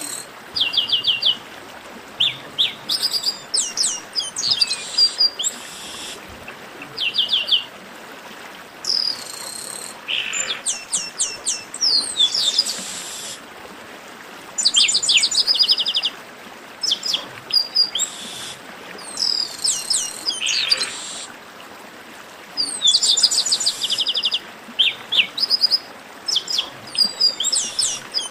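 Chestnut-capped blackbird song: short phrases of rapid, high, downward-sweeping notes repeated every second or two, over a steady faint hiss.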